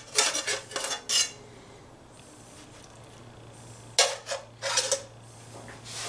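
Metal spatula scraping and clinking in two short clusters, about a second in and again about four seconds in, as cheese-topped burger patties are lifted and set onto toasted rye bread.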